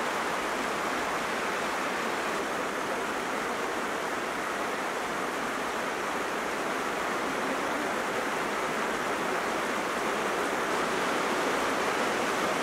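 Rain falling steadily: an even hiss with no breaks.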